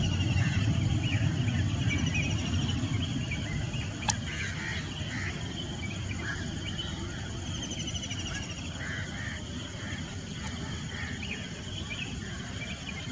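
Night insects, such as crickets, trilling steadily in high, finely pulsing tones, with shorter chirps repeating among them. Beneath them is a low rumble that is loudest in the first few seconds and then eases, and a single sharp click comes about four seconds in.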